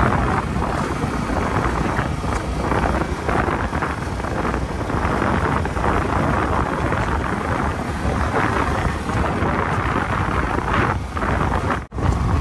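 Wind buffeting the phone microphone on a moving motorcycle, a loud rumbling rush with road and vehicle noise underneath. The sound cuts out for an instant near the end.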